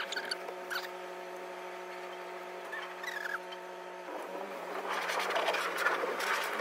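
Heard from inside a car in an automatic car-wash tunnel: a steady hum from the car, with a few faint short squeaks. From about four seconds in, the hiss and patter of a pressure-wash spray on the car builds and grows louder.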